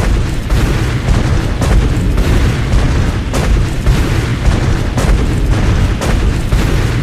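Explosion sound effect: a loud booming rumble that starts suddenly, with repeated sharp cracks through it, held for about seven seconds and then fading out.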